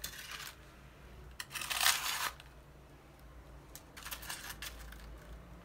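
Metal tongs handling crisp, freshly fried börek pastries on a plate, making three short crackly rustles. The loudest comes about two seconds in.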